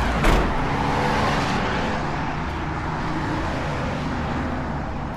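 Steady highway traffic noise with cars passing, and a single thump about a third of a second in.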